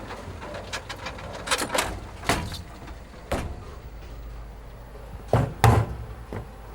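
A series of sharp knocks at irregular intervals, the two loudest close together near the end, over a low steady hum.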